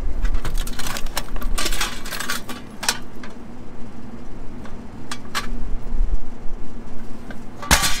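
Scattered light metallic clinks and clicks over a steady low hum, with a sharper, louder click near the end.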